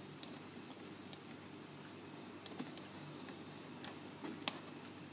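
Faint, scattered clicks of a computer mouse, about six over a few seconds, two of them close together near the middle.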